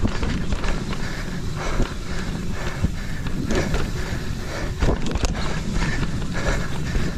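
Enduro mountain bike rolling fast down a dirt trail: tyre rumble, chain slap and frame rattles over the bumps, with wind on the microphone. The rider's hard breaths come every second or two.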